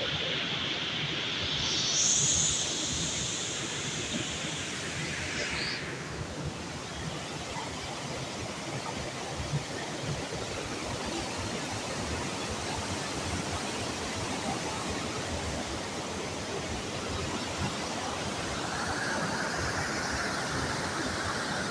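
Waterfall: a steady rush of falling water. A high, shrill, steady sound rides over it for about the first six seconds.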